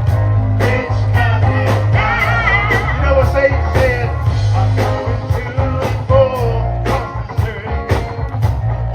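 Live gospel band playing with a strong bass line, steady drumbeat and guitar, with a voice singing over it.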